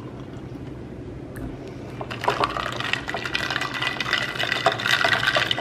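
Creamer poured into a glass mason jar of iced coffee over ice. From about two seconds in, ice cubes clink and rattle against the glass as the coffee is mixed.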